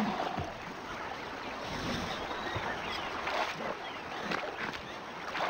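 Water sloshing and splashing as a crowded pod of hippos shifts about in a shallow river, with a few sharper splashes in the second half.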